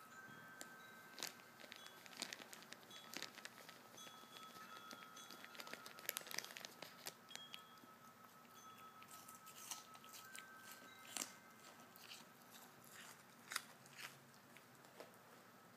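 A white-tailed deer chewing and crunching food: a long run of soft, irregular crunches and clicks.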